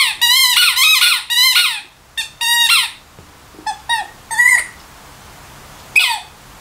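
Yellow rubber squeaky toy squeaking as a dog bites and chews it: a run of rapid, wavering squeaks for the first few seconds, shorter bursts about four seconds in, and one more near the end.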